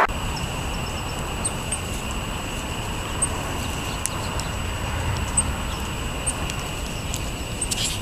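Outdoor street ambience: a steady low rumble of distant traffic, with a few faint, very high chirps from small birds scattered through.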